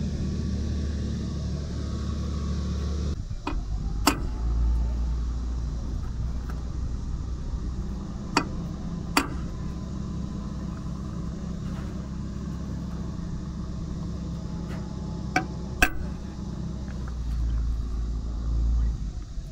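A handful of sharp single metal taps, hammer blows on a punch against an aluminium mounting plate, spaced several seconds apart (two close pairs among them), over a steady low rumble.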